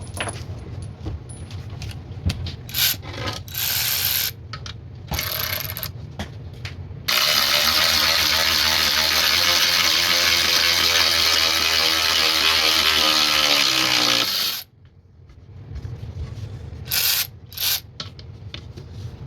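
Byczone 3/8-inch cordless ratchet wrench running for about seven seconds as it drives a bolt into a wooden 2x6. Its pitch slowly drops as the load builds, and it stops abruptly. A few short bursts come before it, and two more come near the end.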